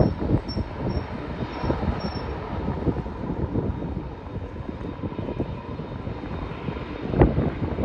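Boeing 767-300ER airliner rolling out down the runway after touchdown, its jet engines and wheels making a steady low rumble broken by irregular low thumps, one stronger thump about seven seconds in.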